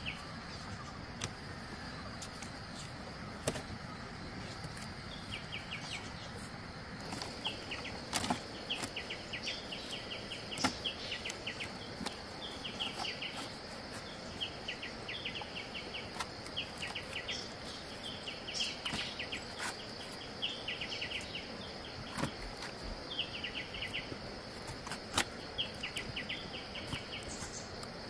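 Insects chirping outdoors: short pulsed chirps repeat every second or so over a steady high buzz, with scattered sharp clicks.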